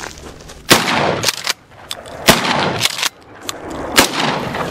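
Three blasts from a Mossberg 590 12-gauge pump-action shotgun, about a second and a half apart, each trailing off over about half a second. Shorter sharp clacks between the shots are the pump slide being worked to chamber the next shell.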